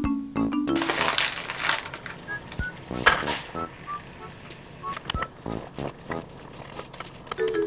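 Background music, with dry spaghetti rattling against a stainless steel saucepan as it goes into the pot of water. The loudest rattle comes about three seconds in, and sharp clicks follow as a utensil pushes the pasta down into the pot.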